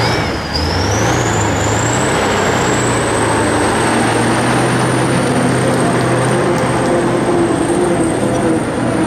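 Kirovets articulated tractor's turbodiesel engine revving up and then held at high revs, with a high turbocharger whine that climbs over the first two seconds and then holds steady.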